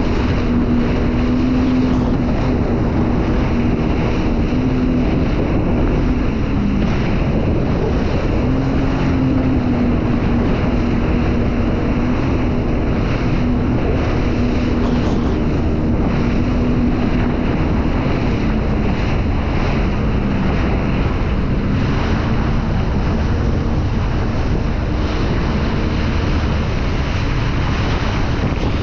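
Sea-Doo Spark jet ski engine running steadily at low speed, its tone dipping briefly a couple of times. Wind buffets the microphone and water splashes.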